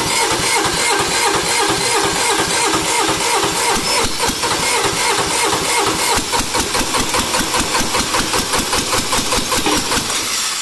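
Small diesel engine being cranked by its gear-reduction starter on its first start attempt after a glow, turning over in a fast even rhythm for about ten seconds before it stops near the end.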